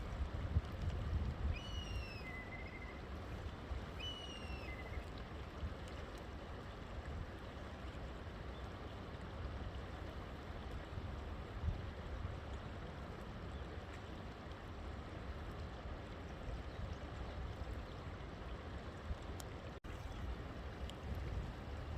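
River water flowing, a steady rushing wash. A bird gives a few short falling chirps in the first five seconds.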